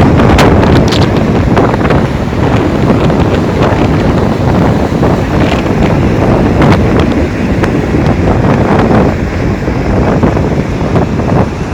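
Strong wind of a snowstorm blowing across the microphone: a loud, steady, rumbling noise that rises and falls a little, with a few crackles in the first second.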